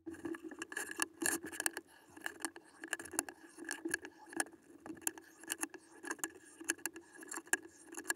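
Wooden strips clacking and scraping against each other and the benchtop as they are picked up, shuffled and laid down, giving a run of irregular sharp knocks.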